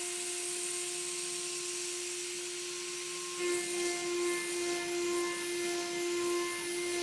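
High-speed CNC router spindle (CNCDepot S30C) running with a steady whine. About three and a half seconds in, the end mill cuts into aluminum: the sound grows louder and wavers, and higher tones join the whine.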